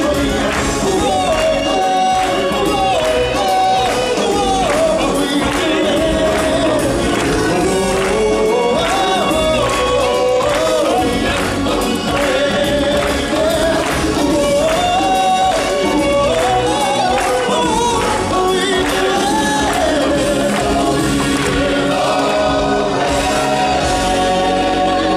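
A song performed with a group of voices singing together in a choir style over a backing band with a steady beat.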